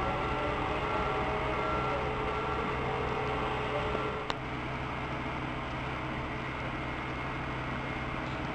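Steady rumble of Berlin S-Bahn station traffic, with an electric S-Bahn train on the elevated tracks giving a faint whine of several tones that fades away about four seconds in. A single sharp click comes just after.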